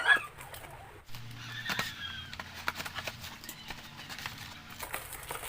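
Small clicks and knocks of a plastic ring light stand and its packaging being handled, over a faint steady hum. A brief animal call sounds about two seconds in.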